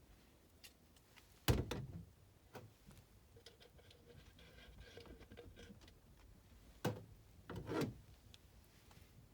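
Knocks and light clatter of furnace vent pipe and fittings being handled: one sharp knock about a second and a half in, then two more close together near the end, with a faint steady tone for a couple of seconds between them.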